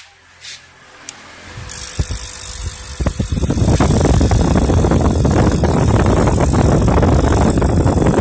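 Wood mortising machine: a few light clicks, then its motor starts about a second and a half in and builds up, and from about three and a half seconds in it runs loud and steady as the chisel cuts into the wood.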